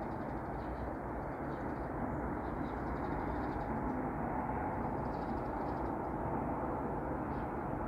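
Steady outdoor background rumble, even throughout, with faint high chirps now and then.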